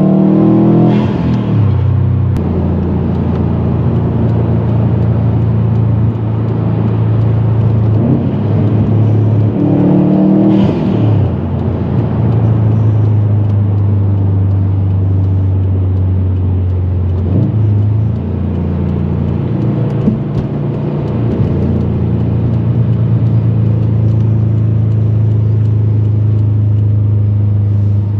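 Turbocharged Subaru WRX STI flat-four engine under way in a Stage 2 tune. It pulls up through the revs and drops back twice, about a second in and again about ten seconds in, with a brief turbo flutter as it lets off. In between it holds steady cruising revs with its low boxer rumble.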